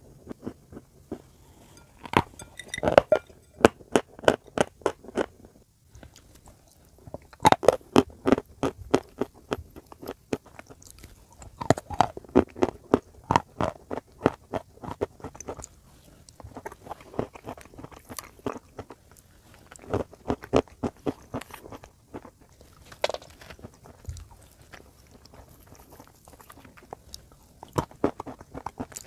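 Close-miked crunching and chewing of edible chalk pieces and crumbs, in bursts of rapid crisp crunches separated by short quieter pauses.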